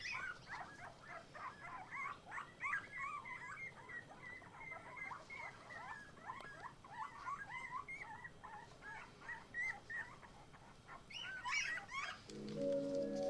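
Litter of nine-day-old Labrador puppies whining and squeaking, many short high cries overlapping without a break. Near the end the cries stop and music comes in.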